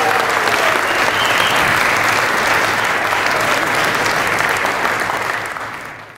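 A large audience applauding steadily, fading out over the last second.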